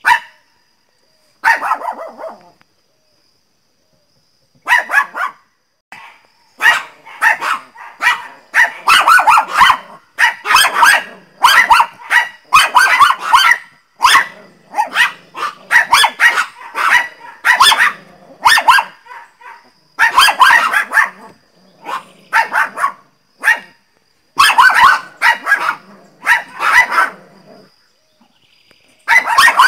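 Small pinscher dogs barking angrily. The high-pitched barks come one at a time at first, then in quick, dense runs, and stop briefly near the end before starting again.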